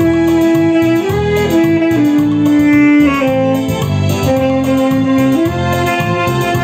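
Saxophone playing a salsa melody in long held notes, stepping from pitch to pitch every second or two, over a backing track with a pulsing bass line and steady percussion.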